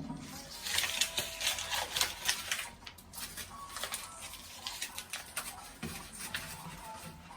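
Rapid, irregular light clicks and taps, densest in the first half and thinning out later, over faint background music.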